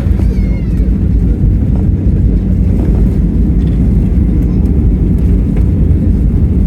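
Loud, steady low rumble inside the cabin of an Airbus A320-232 with IAE V2500 engines, heard from a window seat during the landing. A faint falling whine sounds near the start.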